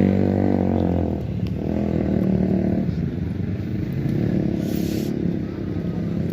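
Street traffic: a motorcycle engine running past close by, its note dropping away about a second in, leaving a steady rumble of passing vehicles.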